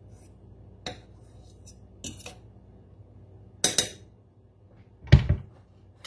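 A metal fork clinking against the side of a stainless steel pot as it fluffs rice: a few sharp, separate clinks, one a quick double. A louder, deeper thump follows about five seconds in.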